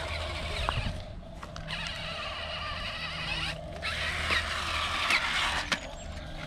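Remote-control toy monster truck's small electric motor and gears whirring steadily, cutting out briefly twice.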